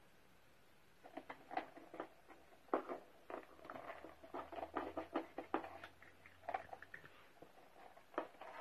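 Cats pawing and clawing at a cardboard toy packed with toilet-paper tubes: irregular scratching and tapping on cardboard that starts about a second in and goes on in quick, uneven clusters.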